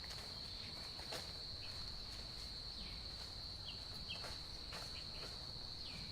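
Steady high-pitched insect trilling, with a few short chirps and faint ticks over it.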